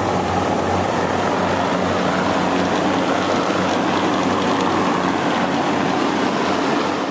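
Twin-fan refrigeration condensing unit of a milk tank running steadily: compressor hum under the rush of the condenser fans, with its newly fitted thermostatic expansion valve in place.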